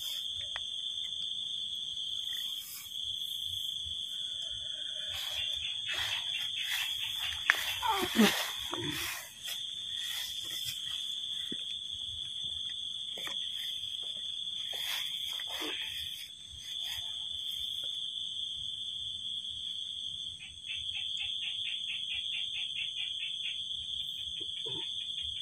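Steady high-pitched chorus of night insects. A rapid pulsing call joins for a few seconds near the end, and scattered knocks and a brief louder sound come about eight seconds in.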